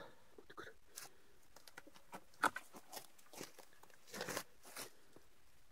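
Scattered crunches, scuffs and small clicks of someone moving about on loose dirt and stones while handling a fallen motorcycle. The sharpest click comes about two and a half seconds in, and a couple of longer scuffs come near the end.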